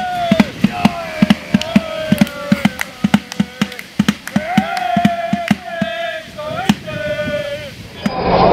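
Football fans singing a chant together to a steadily beaten drum, about four beats a second, with long held sung notes. Near the end it cuts abruptly to a louder, noisy crowd hubbub.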